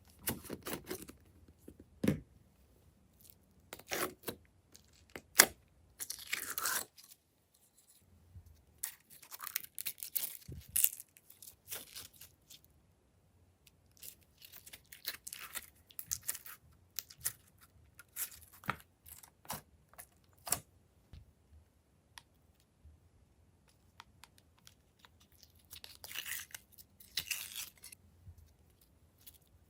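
Glossy slime worked by hand, making irregular crackling, clicking and crunchy tearing sounds in short bursts with pauses between them.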